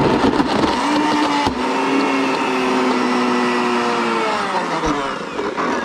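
Blendtec blender motor running steadily with a WildSide jar full of a thick mix of chicken livers and vegetable pulp. Its pitch sags slightly near the end.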